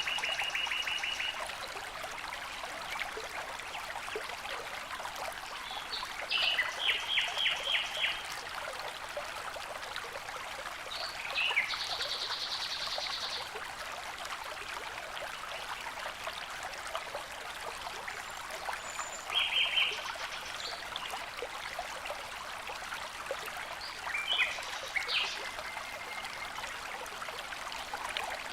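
Running water trickling and splashing steadily, with small birds calling over it several times in short quick series of notes.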